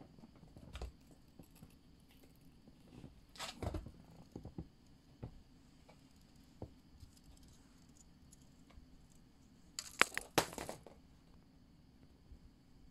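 A cat scuffling and pouncing after a wand toy on a hard floor: scattered light taps and rustles, with two louder scrabbling bursts, one about three and a half seconds in and one about ten seconds in.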